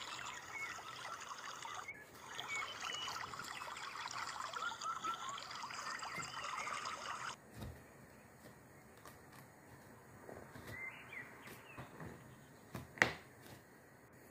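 A steady trickling hiss that stops abruptly about halfway through, then faint scraping as a knife is run around the inside edge of a metal baking pan to loosen a baked lattice tart, with one sharp click near the end.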